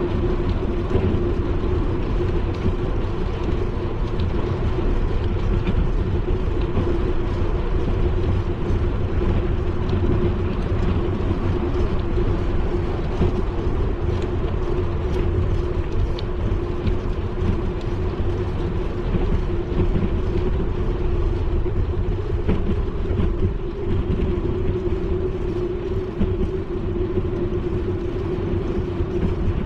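Riding noise from a bicycle-mounted action camera: a steady rumble of wind and tyres on the road, with a constant hum and scattered light ticks.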